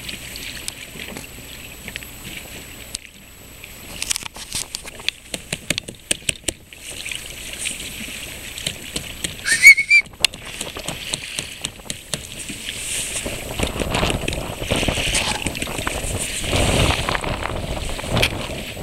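Water sloshing and splashing against a small boat's hull, with a quick run of knocks about four to seven seconds in. A short rising whistle near the middle is the loudest sound, and the water noise grows louder in the second half.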